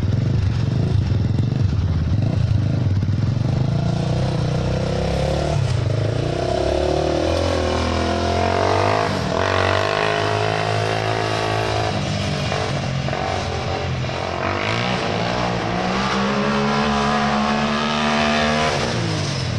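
Honda TRX400ex single-cylinder four-stroke engine of an off-road kart revving and pulling through the gears, its pitch climbing and dropping several times as the driver accelerates, shifts and backs off.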